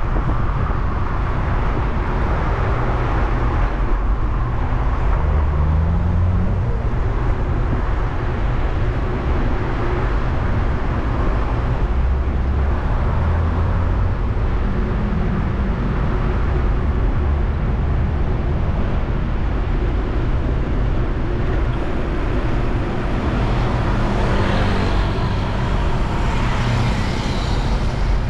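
City street traffic heard from a moving bicycle: the steady rumble of car and motorbike engines running and passing, with an engine revving up about five seconds in and a louder passing vehicle near the end.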